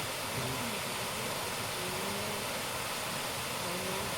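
Steady rushing of a waterfall, with faint wavering tones underneath.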